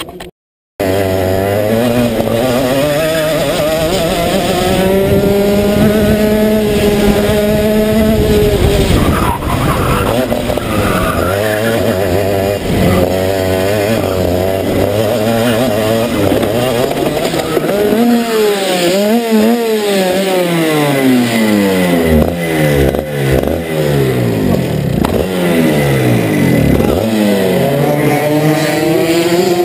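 Rotax two-stroke kart engine at racing speed, heard on board. Its pitch climbs as it accelerates and drops sharply as the driver lifts for corners, many times in quick succession in the second half.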